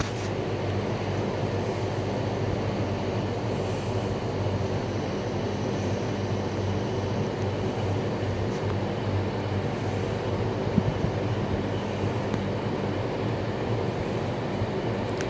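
Steady mechanical hum with a low rumbling noise underneath, unchanging throughout.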